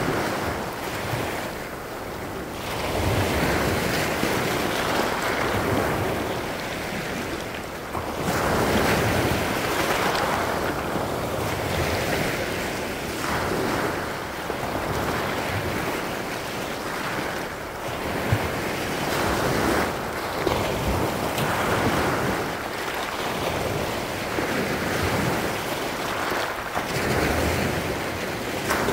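Small Baltic Sea waves breaking and washing up over a pebble beach, the surf swelling and falling back every few seconds.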